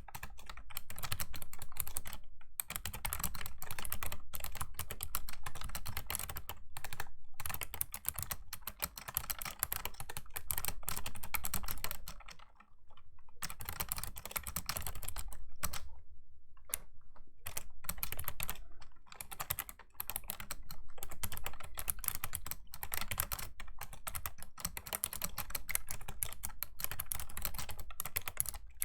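Fast, continuous typing on a Razer Ornata Chroma V2 keyboard's clicky mecha-membrane keys, a dense stream of key clicks broken by a few short pauses.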